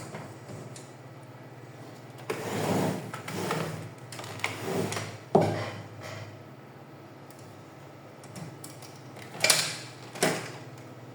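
Plastic housing parts of a laser printer being handled during disassembly: scraping and sliding with a few sharp knocks, in separate bursts from about two seconds in and again near the end.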